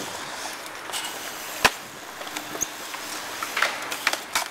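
Skateboard wheels rolling on a concrete skatepark surface. There is a sharp clack from the board about one and a half seconds in, and a clatter of several more clacks near the end.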